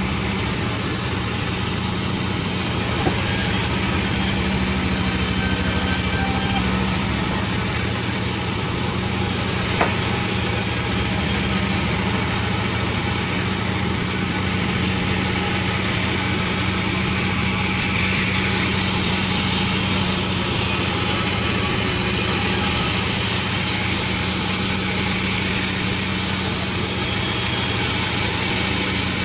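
Sawmill's engine running steadily, with a couple of faint clicks a few seconds in and near ten seconds in.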